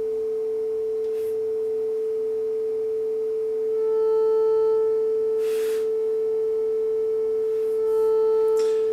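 Steady mid-pitched sine-wave test tone from an FG100 DDS function generator, played through an audio receiver's speaker. Twice, about four and eight seconds in, it briefly grows louder and harsher as the output amplitude is raised, with a short hiss about halfway through.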